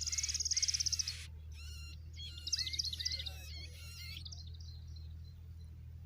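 Young birds calling: a rapid, high, slightly falling trill for about the first second, then a cluster of sharp chirps about two and a half seconds in, over a steady low hum.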